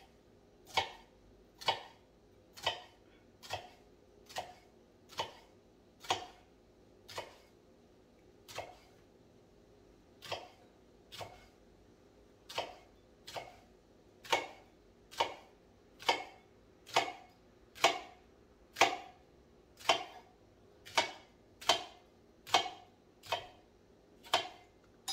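Kitchen knife slicing through vegetables onto a cutting board, one cut at a time in a steady, unhurried rhythm of a little more than one cut a second, the cuts growing louder in the second half.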